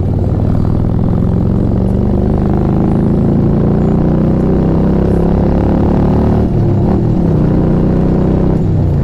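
Harley-Davidson V-twin motorcycle engine under way, its pitch rising steadily as it accelerates. It breaks off and drops about six and a half seconds in and again near the end, like gear changes.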